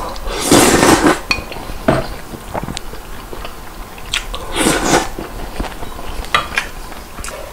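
Close-up eating sounds of Neoguri ramen noodles: two long, loud slurps, about half a second in and again just before five seconds in, with chewing between them and short clinks of chopsticks and a ladle against the bowl and pan.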